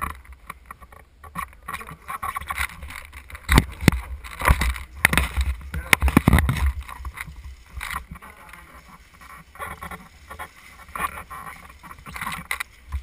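Handling noise on a gun-mounted action camera: irregular knocks, clicks and rubbing over a steady low rumble of wind and movement. A cluster of louder knocks comes in the middle.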